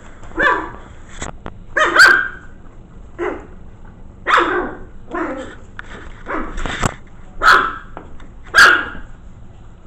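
Five-week-old Maltese-mix puppy yapping: about eight short, high barks, spaced roughly a second apart.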